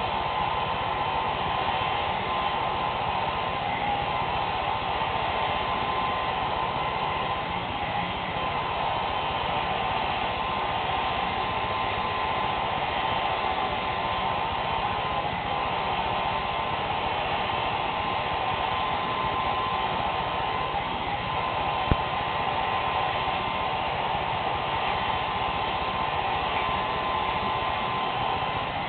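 Handheld hair dryer running steadily while blowing on hair: an even hiss with a steady whine. A single sharp click about three-quarters of the way through.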